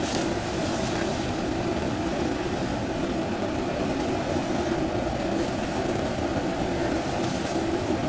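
Diesel engine of a JCB 3DX backhoe loader running steadily under load while its hydraulic backhoe arm swings and digs mud.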